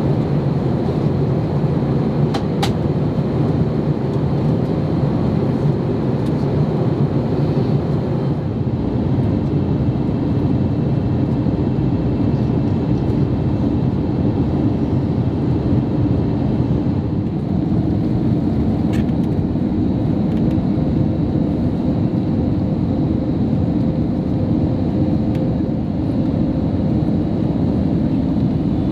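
Steady cabin noise of an Airbus A321neo in descent: airflow and engine drone heard from a window seat. The low drone shifts in pitch about eight seconds in.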